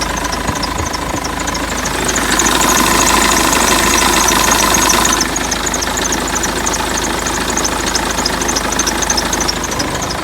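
BMW 320d E46 four-cylinder diesel engine idling with its diesel clatter, and a whistle under the bonnet whose cause the owner does not know. A steady whistling tone sounds for a few seconds in the middle, and a high, rhythmic chirping repeats a few times a second throughout.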